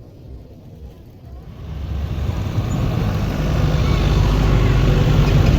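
A low vehicle rumble that swells sharply about a second and a half in and then stays loud, with voices in the background.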